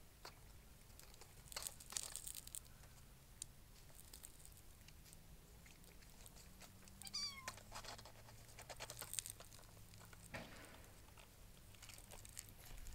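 Faint scratchy rustling of kittens' paws on a corrugated cardboard scratcher, and one short, high mew from a five-week-old Bengal kitten about seven seconds in, falling in pitch.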